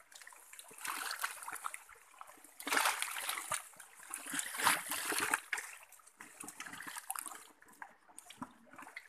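Hands splashing and sloshing through shallow muddy stream water while groping for loaches, in irregular bursts that are loudest around the middle.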